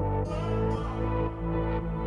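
Background music: sustained electronic instrumental tones with a steady pulse.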